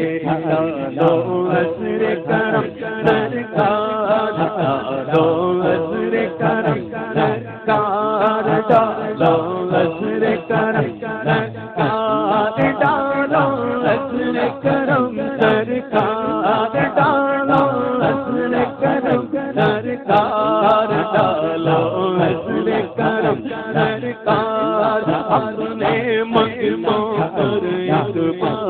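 Man singing a manqabat, an Urdu Sufi devotional hymn, in a melodic chanting style through a microphone.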